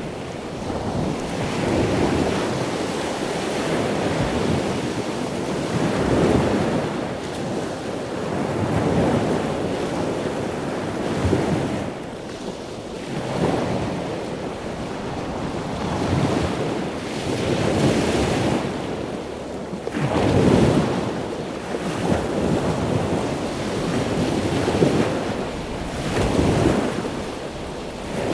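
Wind blowing over the microphone together with the wash of surf: a loud, steady rush that swells and eases every two to three seconds.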